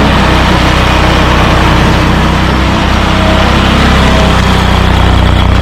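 A large engine running loudly at a steady speed, with no change in pitch.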